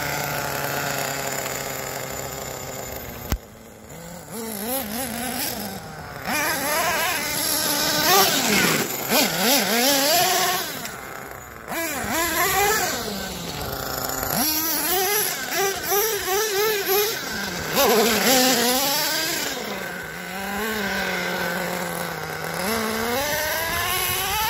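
Redcat Earthquake 3.5 RC truck's small nitro engine revving up and down over and over as the truck is driven, its pitch rising and falling. The owner puts a top-end stutter in this engine down to an air bubble in the fuel line from the tank hose.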